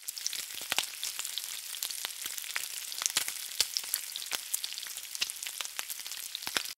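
Food frying: a steady sizzle with many scattered crackles and pops, cutting off abruptly near the end.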